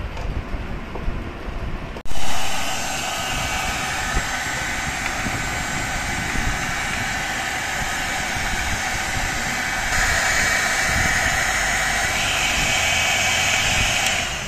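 Electric heat gun switched on about two seconds in, then running steadily with a fan hiss that grows brighter about ten seconds in.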